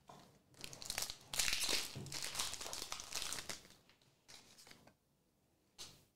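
Foil wrapper of a Pokémon Surging Sparks booster pack crinkling as it is torn open, loudest in the first two seconds, then fading. A short tap near the end.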